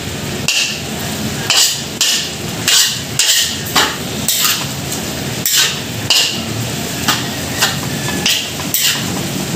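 Metal spatula scraping and clanking against a steel wok, stir-frying ground pork filling, about once or twice a second with a brief metallic ring on some strokes.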